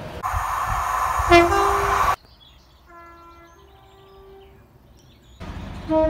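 Train horns sounding in short two-tone blasts, each a low note stepping up to a higher one. The first comes over a train's loud running noise, the second is fainter and more distant, and another horn starts loudly near the end.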